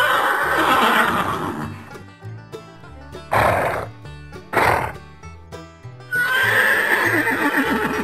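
Horse whinnying: a call of about two seconds that falls in pitch, two short noisy bursts around the middle, then a second whinny starting about six seconds in. Background music plays underneath.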